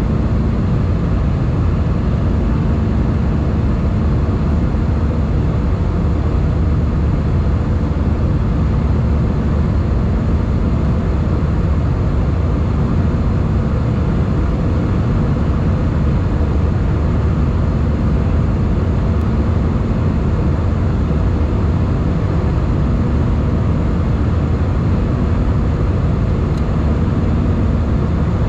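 Airbus A320 cabin noise from a window seat over the wing while climbing after take-off: steady engine drone and airflow rush, deepest in the low range, with a faint steady hum.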